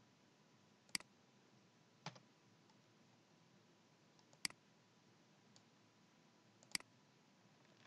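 Computer mouse clicking: four short, sharp clicks, a second or two apart.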